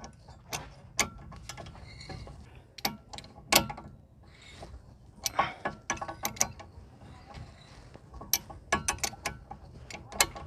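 Irregular metallic clicks and clinks of hand tools and parts of a car's rear disc brake caliper assembly being handled, some with a brief ring.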